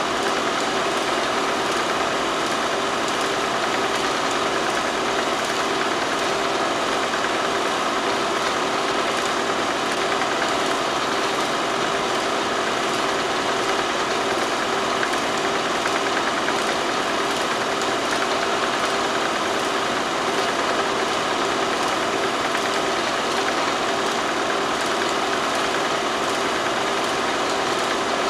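Steady hum and hiss with a few constant tones and no change throughout. The footage is silent film, so this is running noise from the transfer, not sound from the scene.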